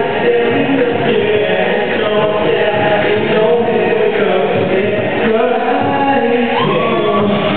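Music with several voices singing together in a choir-like blend, steady and loud.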